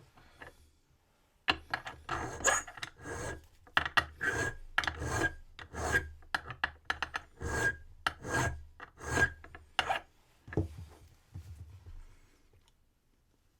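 Hand file rasping across a brass key blank in repeated back-and-forth strokes, about two a second, as the cuts are filed down while impressioning a wafer cam lock key. The strokes begin after a short pause and stop about ten seconds in, followed by a few lighter scrapes.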